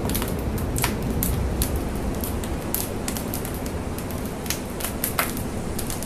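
Large factory fire burning: a steady low rumble with irregular sharp crackles and pops, a few of them louder.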